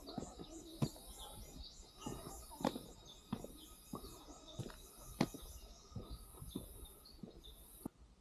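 Cicadas shrilling in pulses about once a second, cut off abruptly near the end, over scattered footsteps on a forest trail.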